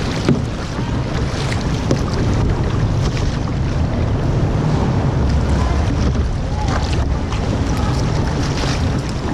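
Wind buffeting the microphone in a heavy, constant rumble over the sound of water, with scattered small splashes from kayak paddling.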